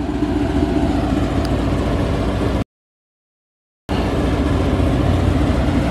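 Car engine idling steadily nearby. The sound cuts out to dead silence for about a second a little over two and a half seconds in, then resumes.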